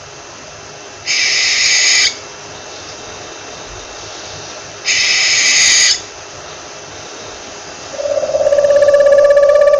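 Owl calling: two high calls, each about a second long, about four seconds apart. About eight seconds in, a steady pitched tone with a fast flutter begins and grows loud.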